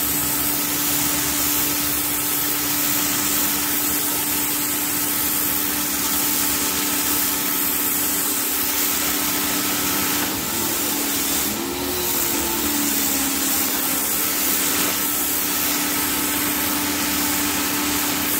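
Greenworks 1700-PSI electric pressure washer running: its electric motor and pump give a steady hum under the hiss of the turbo nozzle's spray hitting concrete. The hum wavers briefly about ten seconds in.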